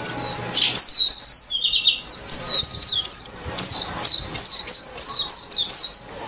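White-eye (vành khuyên) warbling: a fast, continuous run of short, high, downward-slurred chirps, about three a second, with a brief lower trill about a second and a half in.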